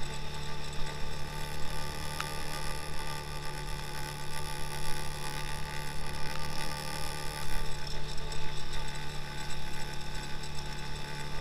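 2x2 all-wheel-drive motorcycle's engine running at a steady speed while riding, with a mechanical rattle over it.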